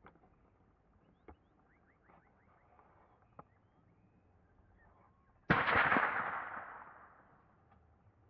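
A single .204 rifle shot fired close by, about halfway through, its report dying away over about two seconds.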